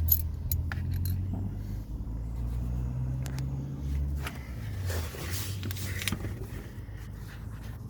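Low steady rumble of a motor vehicle, with a few light clicks.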